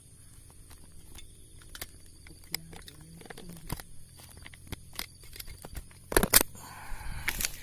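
Footsteps rustling and crackling through forest undergrowth and leaf litter in irregular small clicks, with two louder rustles near the end.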